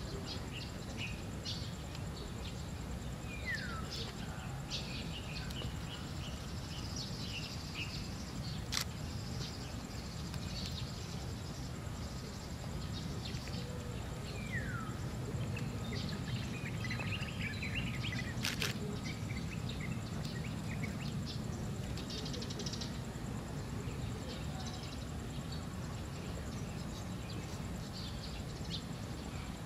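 Outdoor birdsong of many short chirps, with a falling whistled call twice, over a steady low rumble. Two sharp clicks cut through, about a third and two thirds of the way in.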